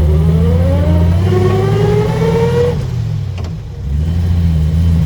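A 1949 Rover P3's engine pulling the car as it accelerates, with a whine that rises in pitch as it gathers speed. The sound eases off briefly about three and a half seconds in, then the engine pulls again.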